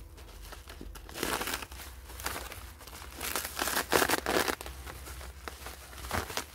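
Plastic bubble wrap crinkling and rustling as it is pulled open and unwrapped, in several irregular bursts, the loudest about four seconds in.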